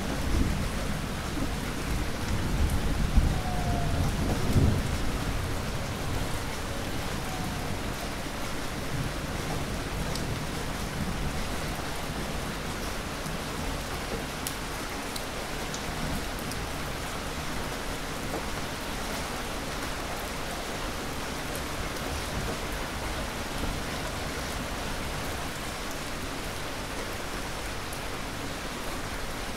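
Heavy rain falling steadily, a dense even hiss. A low rumble of thunder swells over the first few seconds and fades, leaving the rain alone.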